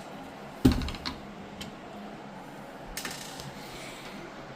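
Small clicks and light clatter of a screwdriver and screws being handled on a TV's back cover while it is being unscrewed, with a sharp knock near the start and a short rattle about three seconds in.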